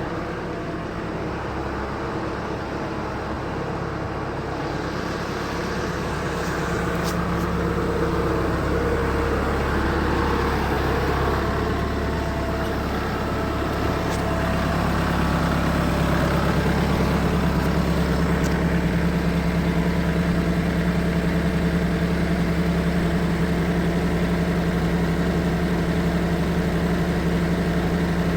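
A vehicle engine running steadily while being driven, growing louder about halfway through.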